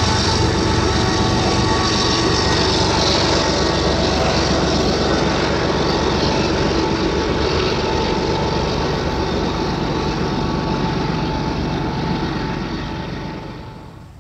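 Diesel freight train running past: a steady engine drone over the rumble of the cars on the rails, falling away sharply near the end.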